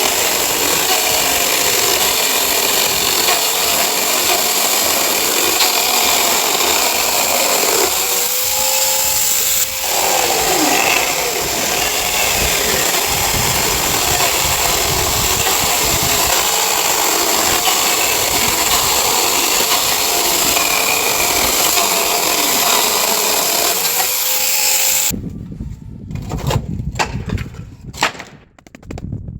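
Chainsaw running and cutting through pallet wood, its pitch dipping and recovering under load. It cuts off suddenly near the end, followed by several sharp knocks of wood pieces.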